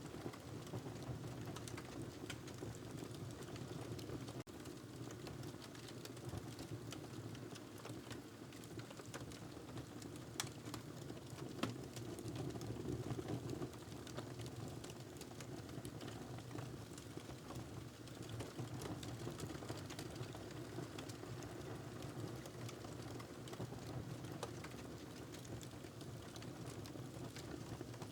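Wood fire crackling in a fireplace: a steady low rumble of burning with small irregular pops scattered throughout.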